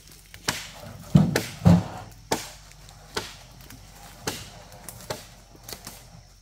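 Wood being chopped with a blade: sharp strikes about once a second, with two heavier, deeper thuds a little over a second in.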